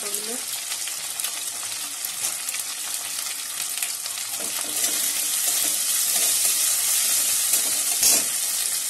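Fish roe, ginger paste and green chillies sizzling in hot oil in a metal kadai, stirred with a metal spatula. The sizzle gets louder about halfway through, and there is one sharp knock near the end.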